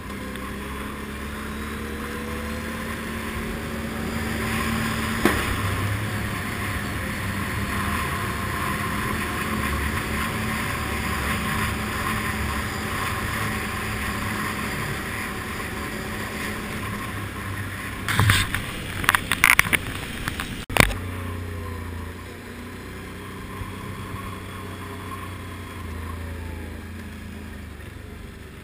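An ATV engine running steadily while riding, with tyre and trail noise, louder through the middle while the quad passes through a tunnel. A cluster of sharp knocks and rattles comes about two-thirds of the way through.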